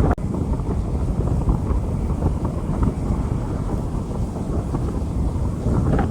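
Rain falling on a street: a steady rushing noise, heavy in the low end, with wind buffeting the microphone.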